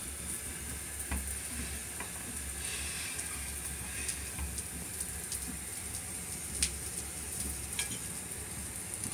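Hot oil sizzling steadily as food fries in a pan, with occasional sharp pops and crackles.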